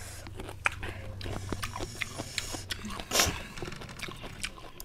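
Close-up mouth sounds of people biting and chewing sour lemon pieces, with many short wet clicks and one louder noisy burst about three seconds in.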